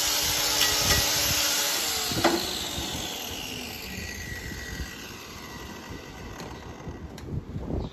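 Handheld power tool used for hoof trimming, running steadily at the cow's hoof, then switched off about two seconds in and winding down with a slowly falling whine. A single knock comes as it stops.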